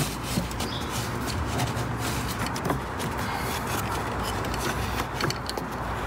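Paper towels rustling and crinkling as hands tuck them around an engine's oil filter housing, with small irregular crackles over a steady background noise.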